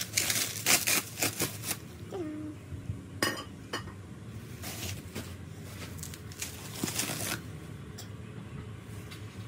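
Bubble wrap and packing rustling and crinkling as a cut-glass tumbler is unwrapped, in several bursts, with a sharp glass clink about three seconds in.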